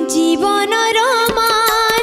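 A woman singing an Odia song into a microphone over instrumental accompaniment. A held, wavering sung note comes in about half a second in over steady sustained instrument tones.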